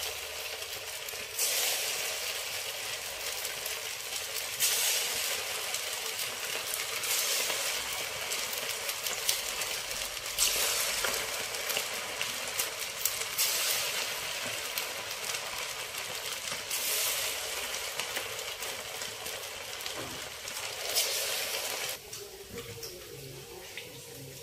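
Rice-batter fritters (punugulu) deep-frying in hot oil, a steady sizzle and crackle that flares up loudly several times as more batter goes into the pan. It quietens suddenly near the end.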